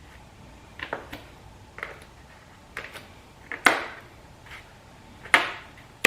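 Scored plastic door panel cracking as the cut section is bent around to snap it off along the knife line: a string of sharp cracks, the two loudest in the second half.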